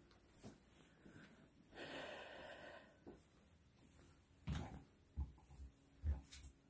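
Quiet room with a breath-like rush of air about two seconds in, then several soft, low footstep thuds on a hard floor in the second half.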